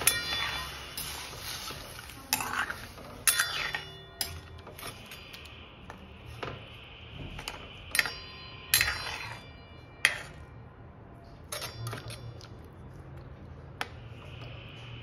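Metal slotted spatula stirring a watery curry in a metal kadhai: irregular clinks and scrapes against the pan, some of them ringing briefly.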